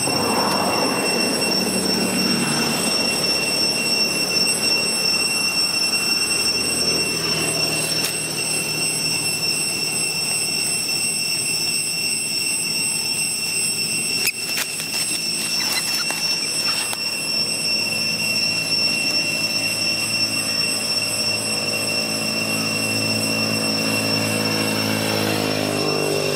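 Steady, high-pitched insect drone, cicadas, over a rumble of outdoor background noise, with a few sharp clicks about halfway through.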